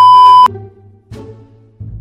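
Loud, steady electronic beep of a TV colour-bars test tone, used as an editing sound effect, lasting about half a second and cutting off abruptly. Fainter low background sound follows.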